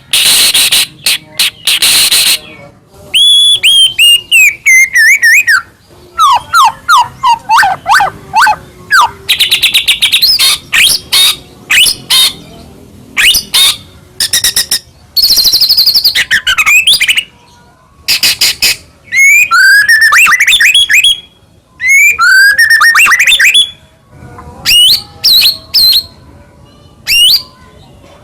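White-rumped shama (murai batu) singing at full volume in a long, varied song full of mimicked phrases: harsh rasping notes, falling runs of whistles and rapid trills, with short pauses between phrases.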